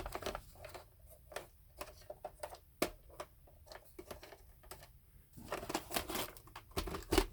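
Hard plastic toy being handled, with irregular small clicks and taps.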